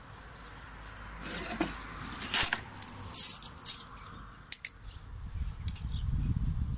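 Metal grill tongs clicking and scraping on the grate of a charcoal grill as food is turned: a run of sharp metallic clinks, loudest about two and a half and three seconds in, with a low rumble near the end.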